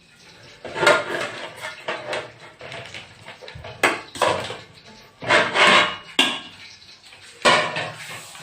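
Metal pot and utensils clattering in a series of separate clanks and scrapes as partly boiled small macaroni is put into a cooking pot.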